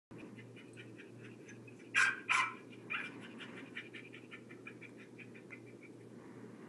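A West Highland white terrier barking twice, sharp and loud, about two seconds in, with a rapid train of short high-pitched yips, about five a second, that fades out near the end, over a steady low hum.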